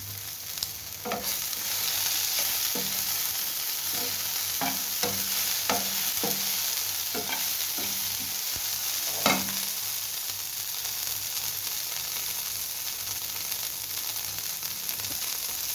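Food sizzling in hot oil in a pan while a spatula stirs it, with about ten short scrapes and knocks of the spatula against the pan in the first half, the loudest a little after nine seconds.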